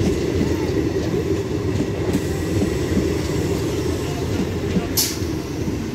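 Electric multiple unit (EMU) local train passing close at speed: a steady rumble with wheels clattering over the rail joints. A short, sharp high-pitched sound cuts through about five seconds in.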